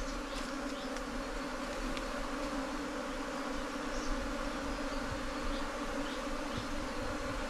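Swarm of honeybees buzzing around their dug-open underground nest, a steady, unbroken hum of many wings.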